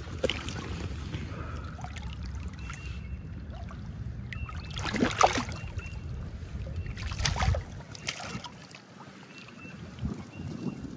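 Shallow river water sloshing and splashing as a released steelhead swims off, with louder splashes about five and seven seconds in, over a low rumble on the microphone.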